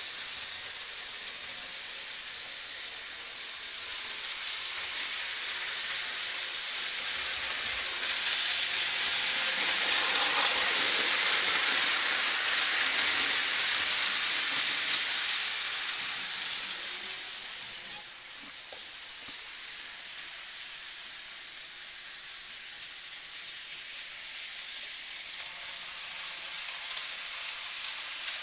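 Model train running on the layout track, giving a steady rolling hiss of small wheels on rail joints and its motor. It grows louder as it passes close, is loudest in the middle, and falls back about two-thirds of the way in.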